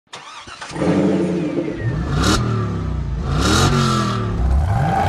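Vehicle engine revving up and down, with two short hissing bursts about two seconds and three and a half seconds in.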